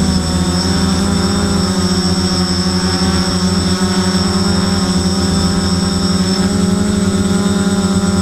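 FPV multirotor's electric motors and propellers buzzing steadily in flight, heard loud and close from the camera on board.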